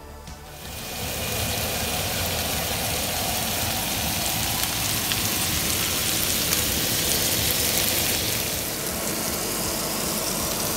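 Boneless chicken thighs sizzling on a hot ridged griddle pan: a steady frying hiss that comes in within the first second.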